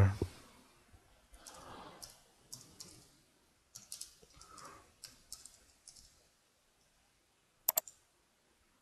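Faint, scattered keystrokes on a computer keyboard as a short comment is typed, then two sharp mouse-button clicks close together near the end, the loudest sound.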